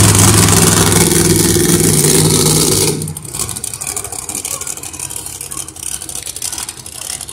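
Monster truck's engine running loud and close, a steady low drone. About three seconds in it cuts off abruptly to a much quieter background of crowd and faint distant engines.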